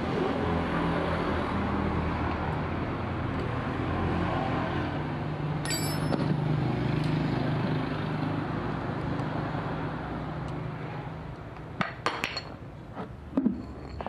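An engine drone that builds and then fades away over about ten seconds, followed near the end by a few sharp metal clinks of tools on the motor's parts.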